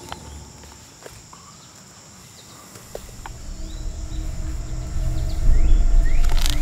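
Woodland ambience: a steady high insect drone, a few short bird chirps and a few light clicks. A low rumble swells up over the second half.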